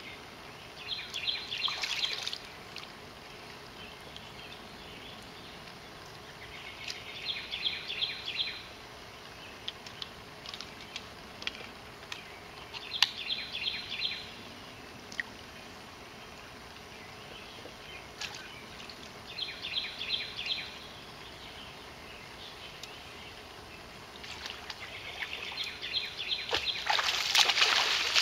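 Short bursts of rapid chirping repeat about every six seconds over a faint outdoor background. Near the end, water splashing builds and gets loud as a swimmer starts stroking in an above-ground pool.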